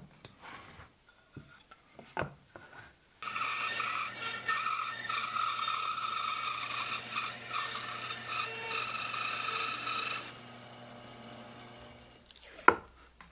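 Band saw cutting a curve through a thick wooden block: a steady, loud cut lasting about seven seconds, starting about three seconds in, with a quieter hum carrying on for about two seconds after it. Before the cut, light knocks of wood pieces being handled on the bench; near the end, a single sharp click.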